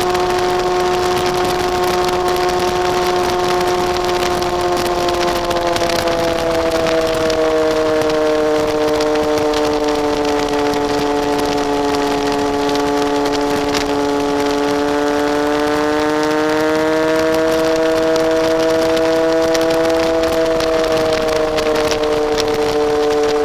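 Honda CBR954RR sport bike's inline-four engine running at cruising revs under a rush of wind on the microphone. The engine note eases down about six seconds in, climbs again about seventeen seconds in, and drops back near the end.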